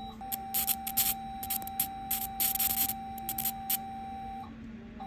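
Medical laser unit sounding a steady high beep while it fires, with short repeated bursts of hissing as the tip burns away xanthelasma tissue on the eyelid. The beep stops briefly near the end.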